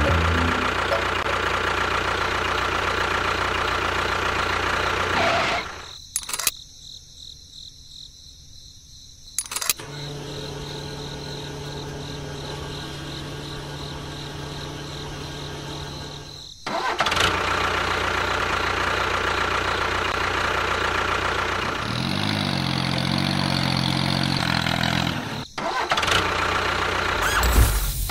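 Small motor of a miniature model tractor running steadily. The sound cuts off and changes abruptly several times, and one stretch holds a steady low hum.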